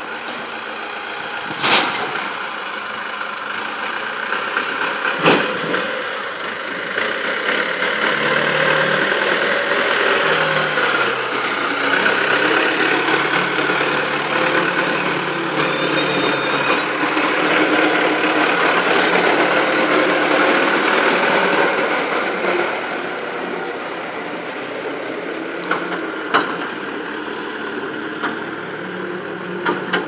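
Diesel engine of a Manitou telehandler running, growing louder for about fifteen seconds in the middle as the machine works close by, then easing back. A few sharp knocks are heard, about two and five seconds in and again near the end.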